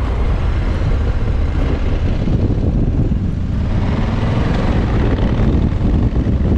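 Honda Africa Twin CRF1100L motorcycle under way at a steady pace, its 1084 cc parallel-twin engine running as a constant rumble mixed with wind rush on the microphone.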